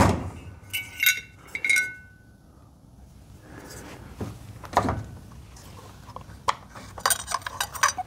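Metal clinks and clicks as a chainsaw muffler and its bolts are handled on a steel workbench. A few short ringing clinks come about a second in, scattered single knocks follow, and a quick run of clicks comes near the end.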